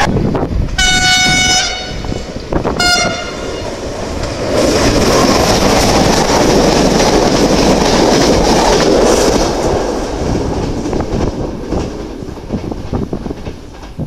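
Train horn giving the driver's greeting in two blasts on one steady note: a long one of about a second, then a short toot near the three-second mark. A passenger train of stainless-steel coaches then passes at speed, its noise loudest in the middle and fading away near the end.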